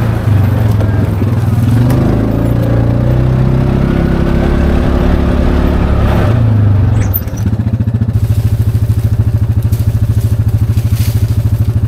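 Side-by-side UTV engine driving slowly along a dirt trail, its pitch rising and falling with the throttle. About seven seconds in it drops to a steady, evenly pulsing idle.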